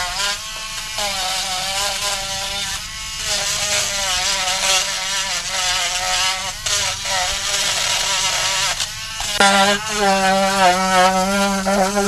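Small handheld electric rotary tool running against wood, its motor whine wavering in pitch as the load changes. It eases off briefly twice, then runs louder and steadier from about nine seconds in.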